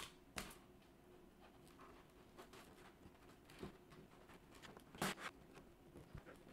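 Faint scattered clicks and scratches of a plastic opening pick working along the edge of a cracked iPad screen, prying the glued glass away from the frame. A few sharper clicks, the loudest about five seconds in.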